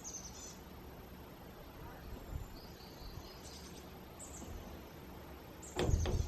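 Small birds chirping in short high calls, a few times, over a steady low outdoor background. Near the end comes a brief loud low thump.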